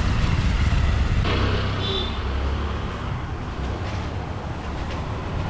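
Road traffic: a steady low engine rumble from passing vehicles.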